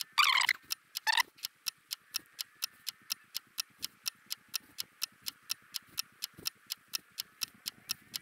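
Spinning reel being cranked on a steady lure retrieve, its rotor clicking about five times a second. A few louder falling whooshes come in the first second.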